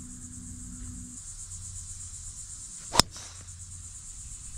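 A golf club strikes a teed ball with one sharp crack about three seconds in, over a steady high buzz of insects.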